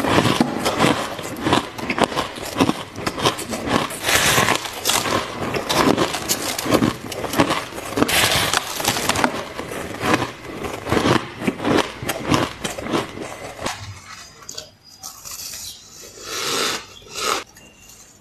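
Close-up biting and crunching into a block of packed snow: a dense, loud run of crisp crackling crunches. About 14 seconds in it gives way to quieter, sparser crunching and chewing of a spoonful of shaved ice.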